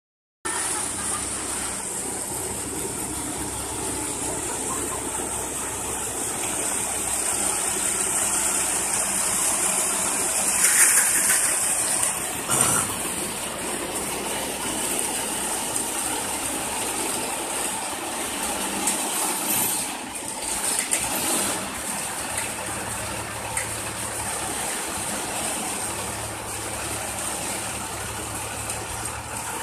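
Steady engine and hydraulic noise of a truck-mounted crane as it lowers a yacht mast on its hook, with a couple of brief louder sounds about eleven and twelve and a half seconds in.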